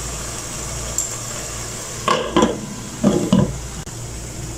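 Glass lid clattering against the rim of a cooking pan, in two short bursts of knocks about a second apart.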